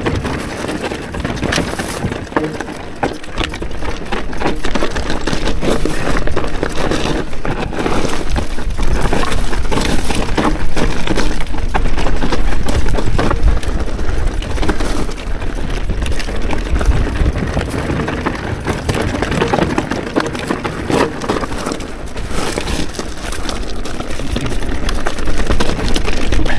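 An electric mountain bike rolling over rocky trail: tyres crunching and clattering over stones, with a constant rattle of many small knocks from the bike.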